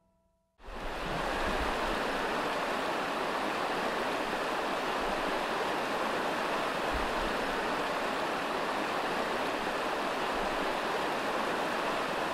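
A river running: a steady rush of flowing water that comes in suddenly about half a second in.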